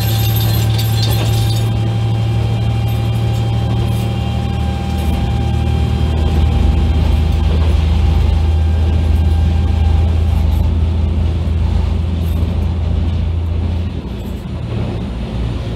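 Diesel railcar engine running under power, a loud low drone whose note steps lower about five seconds in. Near the end the drone drops away and the train rolls on more quietly.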